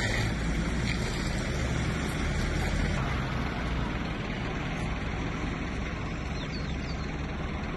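Steady low rumble of road traffic, easing slightly about three seconds in.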